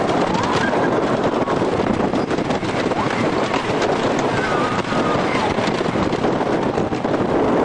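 Wooden roller coaster train running along its track at speed, with a continuous clattering rattle under heavy wind rushing over the microphone.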